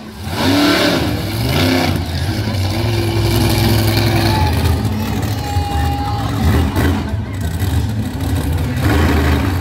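Monster truck engine revving hard in rising and falling bursts over the first couple of seconds, then running loud and heavy under load as the truck drives across the dirt.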